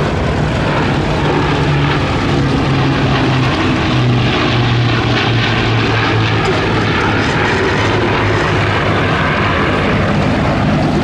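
Rolls-Royce Merlin V12 piston engines of a Second World War propeller aircraft flying by in display: a loud, steady drone.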